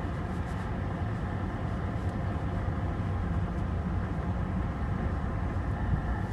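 Steady low rumble of a car driving on the highway, heard from inside the cabin: engine and tyre noise.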